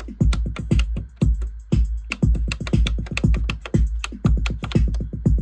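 Roland TR-606 drum machine playing a steady, fast pattern of kick drum and higher drum and hi-hat hits. It is being run as a test after its push buttons were replaced, and is working as it should.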